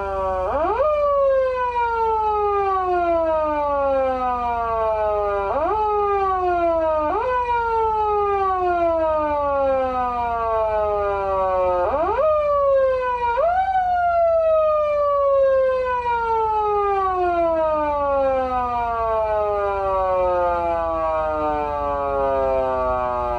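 Foot siren of a PATLITE SAP-500BK-PV siren amplifier, an electronic imitation of a motor-driven wail siren: the pitch shoots up quickly each time the pedal is pressed, then winds down slowly when it is let go. This happens five times, twice re-triggered before the tone has fallen far, and the last slide down lasts about ten seconds.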